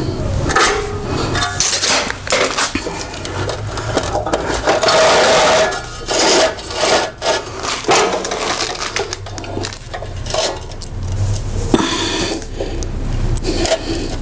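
Irregular metal scraping and clanking: a screwdriver used as a scribe scratching a cut mark into steel frame stock while the steel is handled and shifted.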